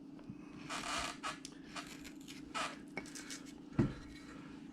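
Hand carving tool slicing into the wood of a carving blank in short scraping strokes, cutting in along a drawn line. A soft low thump near the end.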